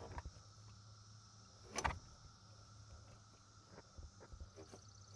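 Faint grinding and scraping from a Lexus GX470's air-conditioning compressor as its clutch is forced round by hand, with a louder knock about two seconds in. The owner thinks the compressor clutch is seized.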